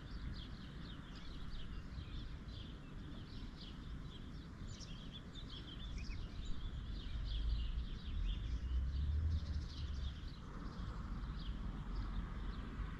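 Birds chirping again and again over a constant low rumble outdoors, with the rumble swelling for a couple of seconds in the middle.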